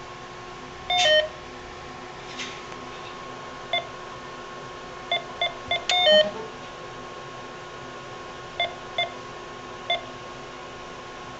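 Bank ATM beeping: about ten short electronic beeps at uneven intervals, a quick run of them around the middle, and two longer two-note beeps that step down in pitch, about a second in and about six seconds in. A faint steady tone runs underneath.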